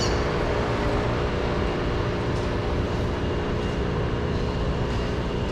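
Steady engine hum of vehicle traffic over a general city street noise.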